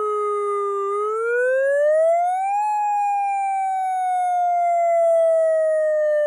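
Siren sounding a wail: its pitch slides down, rises for under two seconds about a second in, then falls slowly again.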